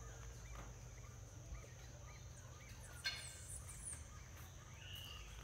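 Faint birdsong: short repeated chirps, with one sharper, louder call about three seconds in, over a steady high insect drone and a low hum.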